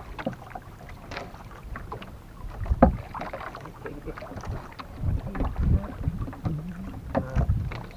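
Irregular knocks and bumps on a small outrigger boat as a handline is hauled in hand over hand. The sharpest knock comes about three seconds in.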